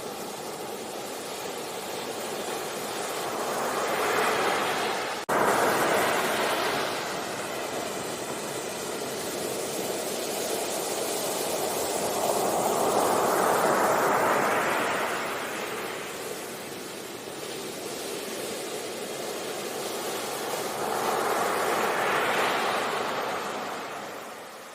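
Ocean waves washing onto a beach, in three slow surges that swell and fade about every eight to nine seconds. There is a brief break in the sound a little after five seconds.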